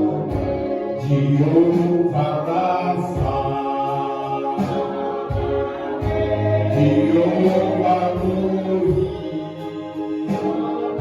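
Congregational gospel worship singing, voices together in sustained held notes over a band with bass.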